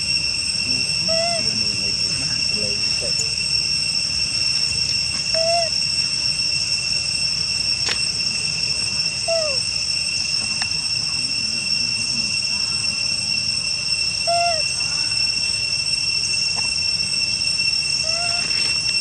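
Steady high-pitched drone of insects, with a short rising-and-falling chirping call about every four seconds. A single sharp click sounds about eight seconds in.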